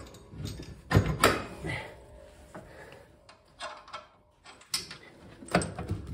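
Steel plow push frame clanking and knocking against the UTV's plow mount bracket as it is lined up by hand, a few separate metal knocks with short gaps between.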